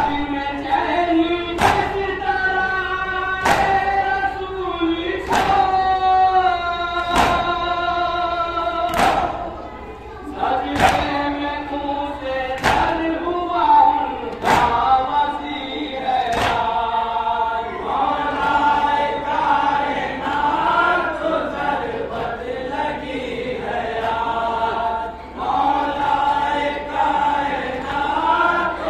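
Men chanting a Shia noha in unison, with their hands striking their chests together in matam about once every two seconds. The chest strikes stop a little past the halfway point while the chanting goes on.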